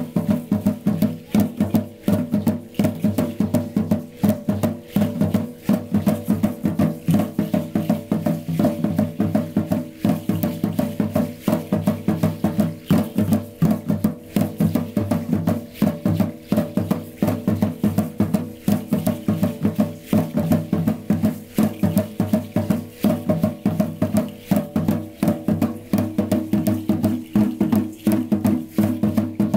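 Dance music played over a loudspeaker: a fast, even percussion beat of sharp clicks over steady sustained low notes.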